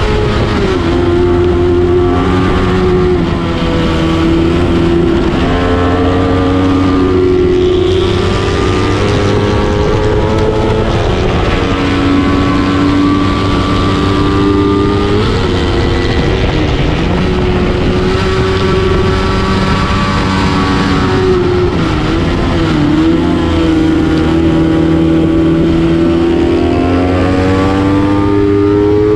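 Kawasaki Ninja 250 parallel-twin race bike under hard throttle, heard onboard. The engine note climbs in pitch and drops back again and again as the rider works up and down the gears.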